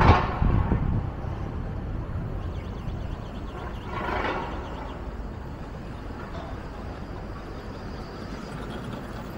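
Wind rumbling on the microphone of a moving bicycle over steady street noise, easing after the first second. There is a sharp knock right at the start and a brief louder swell of noise about four seconds in.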